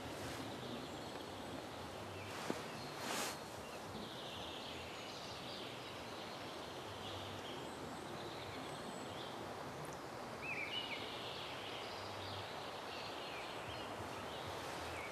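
Forest ambience: a steady faint hush with small birds calling now and then, clearest about ten seconds in, and a brief rustle about three seconds in.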